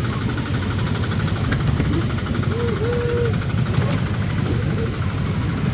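Steady running rumble of a park's passenger train ride, heard on board, with a fast, even clatter over it.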